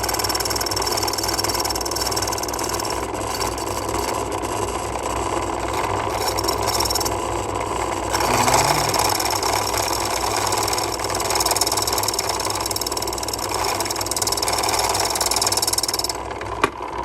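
A key-cutting machine's motor running steadily while its cutter takes metal off the bit of a lever key, with a constant low hum and a high whine. The whine drops away near the end.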